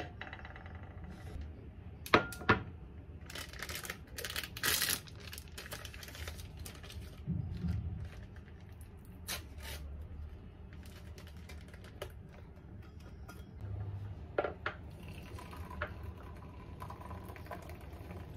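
Small kitchen handling sounds: sharp clinks of crockery set down on the counter, a burst of rustling, and a few knocks, then a faint steady pour of hot water from a kettle into a drip-coffee bag in a mug near the end.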